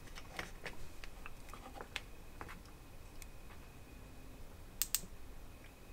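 Faint, sharp snapping ticks of a spark plug sparking as a magnet is passed across the sensor of a CDI electronic ignition unit, with the two clearest snaps close together about five seconds in. The sparks show that the magnet's pole and the ignition are set up correctly.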